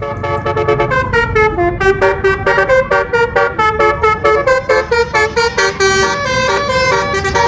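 Telolet bus horn, a multi-tone horn playing a quick melody of short stepping notes over a low rumble.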